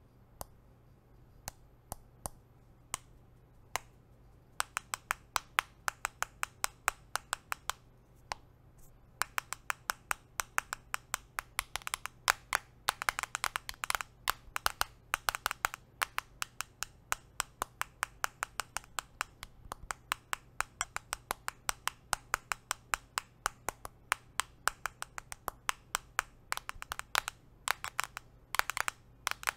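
Fake fingernails on nail rings tapping on a smartphone in a clear case, making sharp clicks. The taps are scattered at first, then come in quick runs from about four seconds in and keep up densely through the rest.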